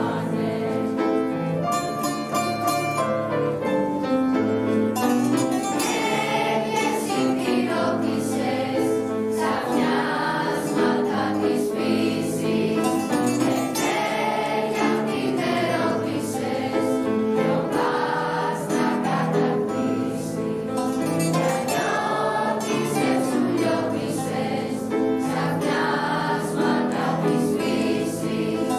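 Mixed choir singing with a plucked-string ensemble of bouzoukis and guitars, without a break.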